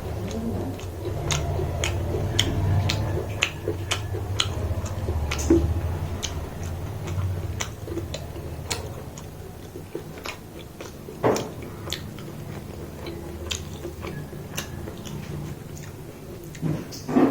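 A person chewing and eating food close to the microphone, with many small mouth clicks and smacks.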